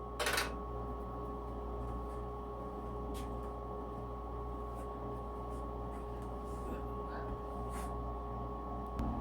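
Steady low electrical hum with a few faint clicks, and a brief rustle or clatter right at the start.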